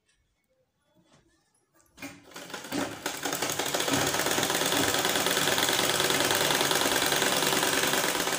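Black domestic sewing machine with gold decals starting up about two seconds in, getting up to speed within a second, then running steadily at a fast stitching pace as it sews a seam through the layered fabric.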